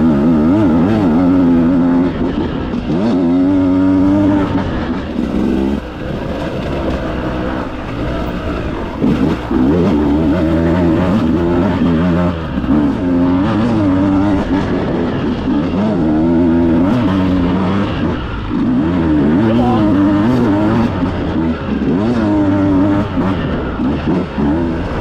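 Two-stroke dirt bike engine under way on a trail, revving up and falling back over and over as the throttle is opened and closed.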